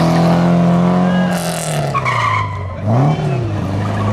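Classic rally car engine pulling at a steady pitch, then dropping as the driver lifts off about one and a half seconds in, with a brief hiss. Near three seconds the engine revs quickly up and down, as in a blipped downshift, and settles into a steady pull again.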